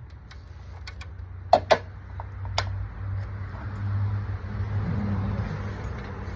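Low engine hum of a vehicle, swelling through the middle and easing off near the end, with two quick sharp clicks about one and a half seconds in and another a second later.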